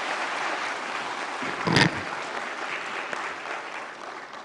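Audience applauding, the clapping slowly dying away, with one brief loud thump about two seconds in.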